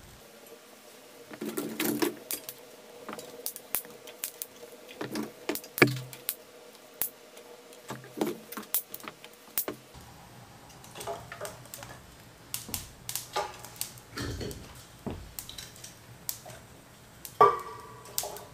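Irregular clinks, knocks and light metallic rattles of small gear being handled, with a sharper knock about six seconds in and another near the end.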